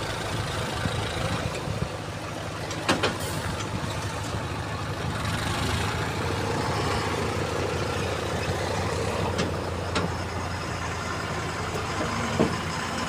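Heavy diesel engine of earth-moving machinery running steadily, with a few sharp metallic knocks: a double knock about three seconds in and single ones later.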